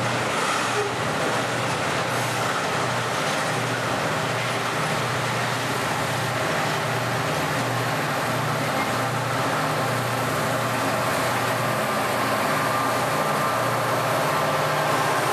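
Loaded iron-ore train rolling by: ore wagons on the rails, then the rear helper SD40-2 diesel-electric locomotives drawing close, their EMD two-stroke diesels running with a steady low throb as they push the train. The sound grows slightly louder toward the end as the locomotives come alongside.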